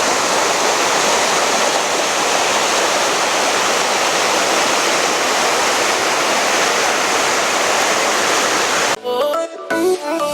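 River water rushing steadily. About nine seconds in it cuts off and music with a beat begins.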